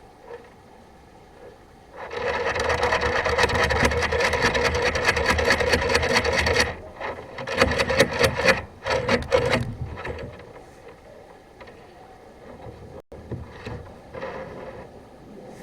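Rough scraping and rubbing from a sewer inspection camera's push cable being fed through the drain pipe: a dense rasp about two seconds in lasting some four seconds, then several short rasps.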